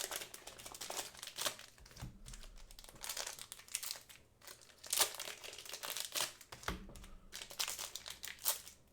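Foil trading-card booster packs being handled and torn open, with irregular crinkling and crackling of the wrappers.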